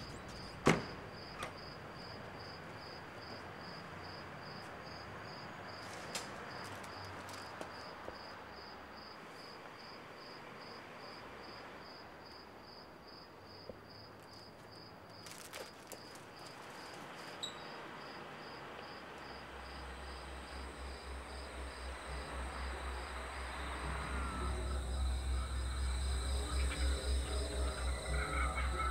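A cricket chirping steadily at about three chirps a second over a faint night-time hiss. About two-thirds through, a low rhythmic throb swells and grows louder.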